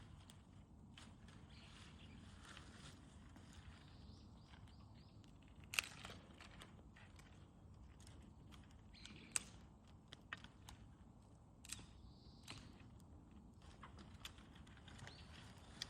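Wood bonfire burning quietly, with scattered sharp pops and crackles over a low steady rumble; the loudest pop comes about six seconds in.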